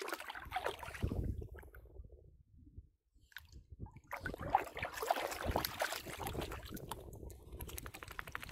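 A Maltese shih tzu's paws splashing and sloshing through ankle-deep water in irregular bursts, with a brief quiet gap about three seconds in.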